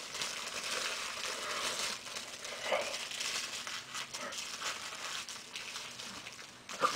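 Crinkling and rustling of something handled close to the microphone, loudest in the first couple of seconds, with a sharp click near the end.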